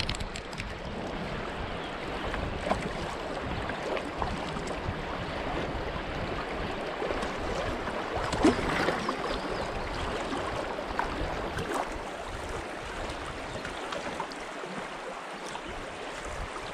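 River water rippling and splashing against a canoe as it floats down a choppy stretch, with wind rumbling on the microphone. A few light knocks come through, the strongest about halfway.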